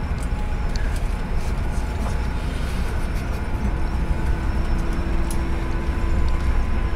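Strong wind buffeting a bus at speed, heard from inside the cabin over a steady deep rumble of road and engine. A faint steady hum comes in about halfway through, and a few small clicks sound here and there.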